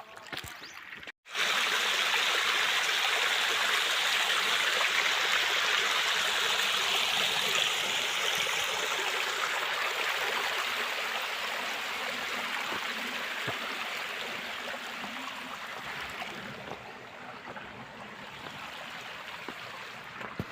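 Flowing water rushing with a steady hiss. It starts abruptly after a brief cut about a second in and slowly fades over the second half.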